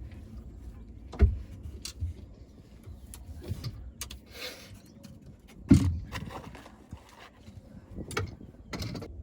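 A few sharp knocks and bumps aboard a small fishing boat, the loudest a little past halfway, with low rumbling and a short rustle between them.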